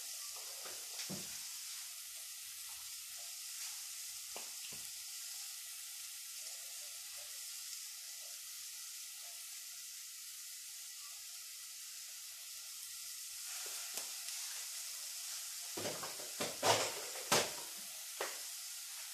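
Butter sizzling in a stainless steel pot of sweet potato pieces, a steady hiss, stirred with a spatula partway through. Near the end come a few sharp knocks, louder than the sizzle.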